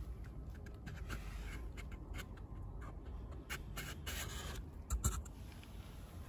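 Light scratchy rubbing with scattered small clicks from a hand brushing over the ridged paper cone of a Pioneer S-180A woofer. There is a sharper click about five seconds in.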